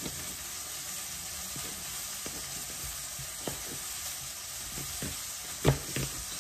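Chef's knife tapping on a plastic cutting board in a few scattered, irregular strokes while slicing an onion, the loudest stroke near the end. Under it runs a steady sizzle of chicken frying in the pan.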